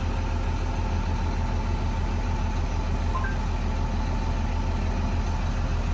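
School bus engine idling steadily, a low even rumble heard from the driver's seat.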